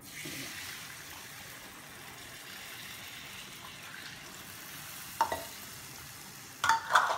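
Cold milk hitting hot ghee and roasted ground moong dal in a nonstick kadai, sizzling steadily from the moment it is poured in. There is a single clink of a utensil about five seconds in and a short clatter near the end.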